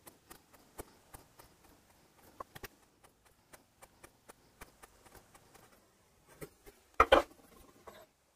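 Narrow chisel being pressed by hand through leather into a wooden board to cut leather washers, giving a run of short sharp clicks about two or three a second. About seven seconds in there is one much louder double knock.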